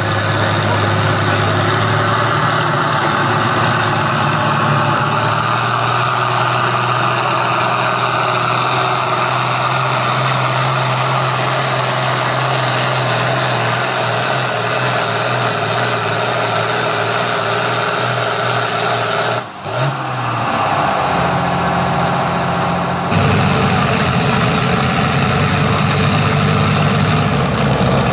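A 10,000 lb class farm pulling tractor's engine running loud and steady under load. There is a sudden short break about two-thirds of the way through, and the engine comes back louder a few seconds later.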